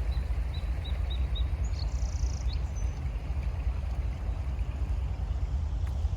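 Wind buffeting the microphone in a steady low rumble over the hiss of a flowing creek. A small songbird gives five short high chirps about a second in, then a brief buzzy trill.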